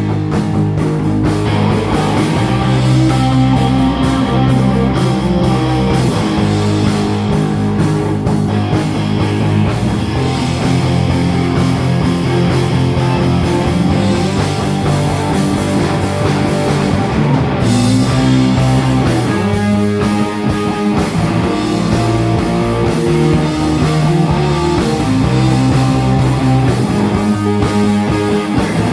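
Rock band playing live and loud, guitar to the fore, with a short thinning of the sound about two-thirds of the way through.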